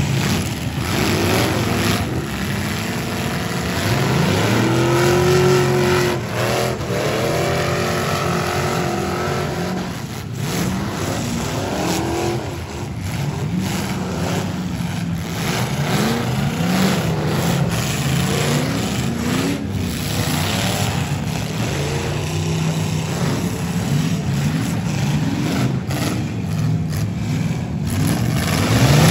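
Several V8 demolition derby cars' engines running through open exhaust stacks, revving up and dropping back again and again as the cars drive and reverse around the arena, their overlapping engine notes rising and falling.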